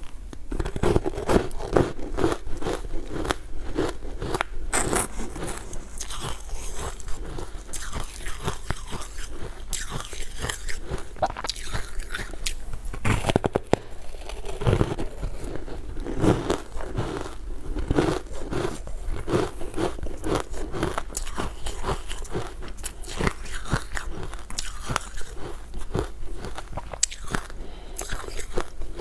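Close-miked biting and chewing of refrozen ice chunks coated in matcha powder: a steady run of crunching and crackling as the ice breaks between the teeth.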